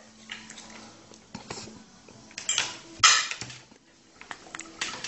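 A fork clinking and scraping on a ceramic plate in scattered short knocks, with two louder clatters a little past halfway through.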